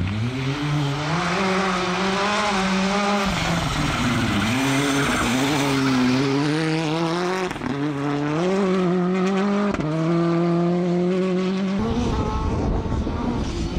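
Hyundai i20 R5 rally cars' turbocharged four-cylinder engines accelerating hard on gravel, the engine note climbing and dipping repeatedly as they change gear, over a gritty hiss of tyres on loose gravel. The engine sound breaks off abruptly several times as one car gives way to the next.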